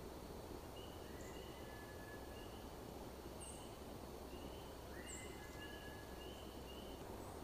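A series of short, high whistled notes, about nine in a row, mixed with two longer, lower whistles and a few faint very high chirps, over a steady background hiss.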